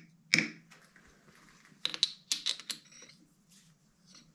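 Light metal taps and clicks on a test bar held in the chuck of a dividing head, tapped to bring its runout down. There are two sharp taps at the start and a quick cluster of small clicks about two seconds in.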